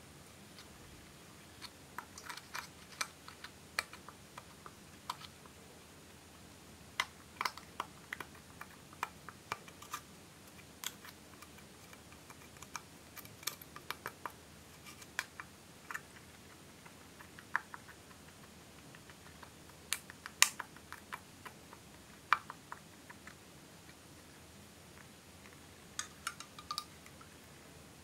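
A metal spatula tool digging into and cracking pressed powder eyeshadow in its plastic compact: irregular sharp clicks and scrapes, some in quick clusters, with pauses of a few seconds between.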